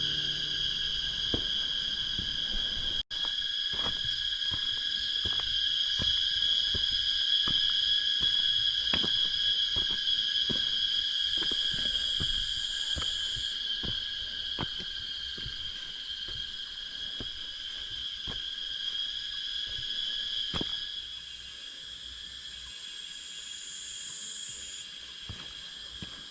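Forest insects singing in a steady chorus of several high-pitched tones at once, with a still higher tone joining near the end. Faint sharp ticks are scattered through, and the sound drops out for an instant about three seconds in.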